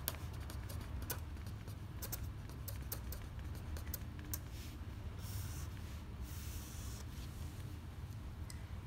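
Pen writing on paper: a run of quick scratches and ticks as letters are formed, then longer smooth strokes about five seconds in as lines are drawn under the words. A steady low hum runs underneath.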